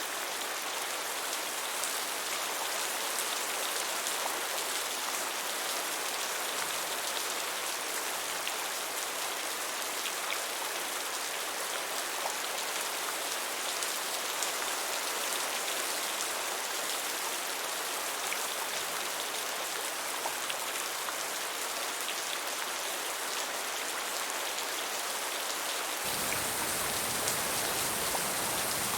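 Steady rain falling, an even hiss with scattered drop ticks. About 26 s in, the sound changes abruptly to a fuller rain with more low rumble.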